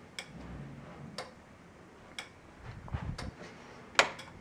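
Simplex fire alarm strobe ticking sharply about once a second as it flashes, powered up for a test, with one louder tick near the end.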